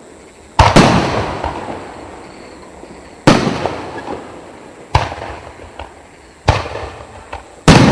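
A 3-inch, 36-shot fireworks cake firing. Five loud shell bursts come at irregular intervals of about one and a half to two and a half seconds, each trailing off in a fading crackle.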